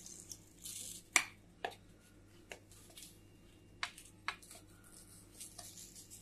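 A pizza cutter wheel rolling through an omelette and clicking on the plate beneath, with the plate shifted on the counter between cuts. There are a few scattered sharp clicks and one soft scrape, irregularly spaced, the loudest about a second in.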